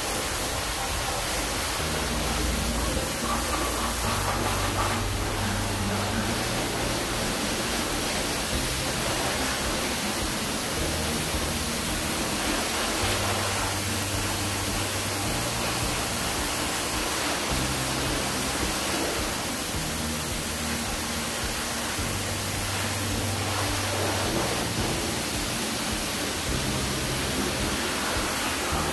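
A car-wash pressure-washer wand spraying a Chevrolet 283 small-block engine, a steady hiss of water jet and spatter. Background music with a slow, stepping bass line plays underneath.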